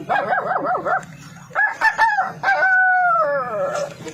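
A boy imitating a rooster with his mouth: a quick warbling run, then a crow that ends in a long falling note.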